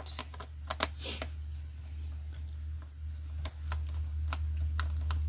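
Scattered light clicks and ticks of a screwdriver and hands working on a laptop's plastic underside, taking out the keyboard screws, over a steady low hum.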